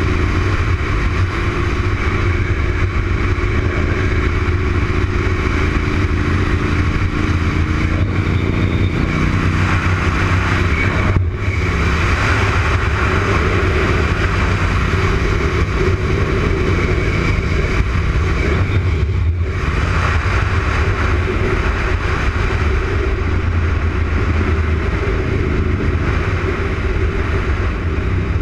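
Honda RC51's 1000 cc V-twin engine running hard at track speed, the pitch rising and falling with the throttle. The sound dips briefly twice, about a third and about two thirds of the way through.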